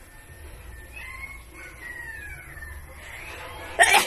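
A single loud, wet sneeze near the end, a sudden burst whose tail drops steeply in pitch. Before it, faint high gliding animal calls.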